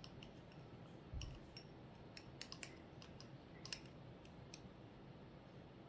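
Near silence, broken by a few faint scattered clicks and a soft low bump about a second in: small things being handled on a tabletop.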